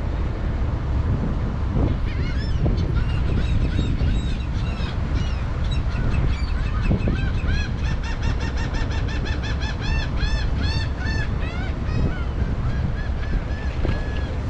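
A flock of birds calling: many short, arched, high calls in quick succession, thickest in the middle and dying away near the end, over a steady rumble of wind on the microphone.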